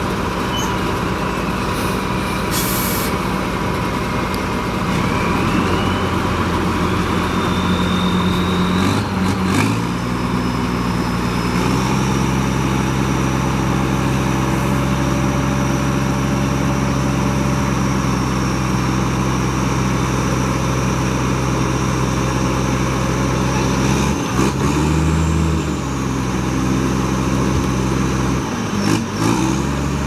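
Heavy diesel engine of earthmoving machinery running under changing load: its pitch steps up about ten seconds in and dips briefly twice near the end. A thin high whine slides up and down in pitch above it, and a short hiss sounds about three seconds in.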